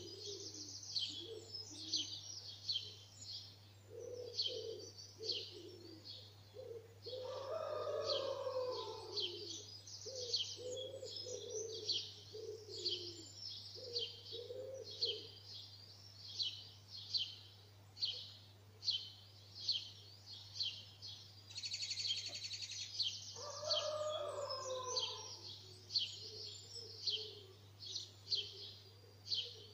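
Dawn chorus: many songbirds chirping in quick, high notes without a break, over low repeated cooing from a pigeon. Twice, a louder and lower call stands out. A steady low hum lies underneath.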